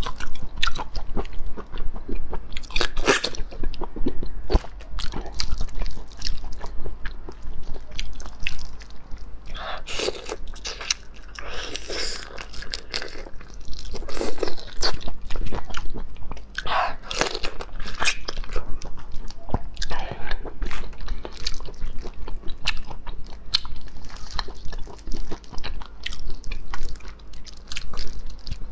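Close-miked eating of marinated black tiger shrimp: repeated crunchy bites into the shells, wet chewing and the peeling of shell from flesh, in an irregular stream of clicks and short crunches.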